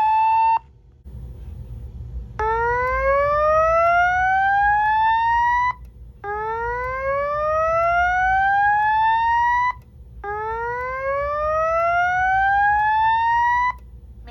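Fire alarm speaker sounding a whoop alert tone: three slow rising sweeps, each climbing steadily for about three and a half seconds and then cutting off, with a short gap before the next. An earlier steady tone stops about half a second in. This is the alert signal that a voice evacuation system plays between spoken evacuation messages.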